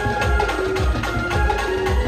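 Live band playing an instrumental passage of a folk song: a held, wavering melody line over a steady drum beat of about two low hits a second, with lighter percussion between.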